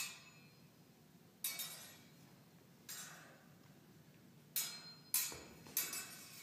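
Small-sword blades clinking together in slow stage-combat exchanges: sharp metal clinks, each ringing briefly, about one every second and a half, then three closer together near the end.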